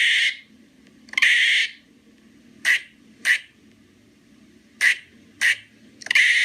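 A person imitating squirrel calls with the voice: a series of sharp, squirrel-like barks and chirps, some short and clipped, a few drawn out longer, spaced irregularly about half a second to a second and a half apart.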